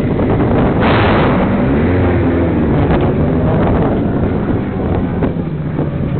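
2007 Honda CBR600RR's inline-four engine running under heavy wind noise on the camera microphone, its pitch climbing between about one and three seconds in.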